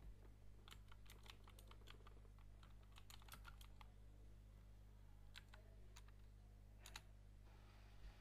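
Faint typing on a computer keyboard: a quick run of keystrokes in the first four seconds, then a few single clicks, over a steady low electrical hum.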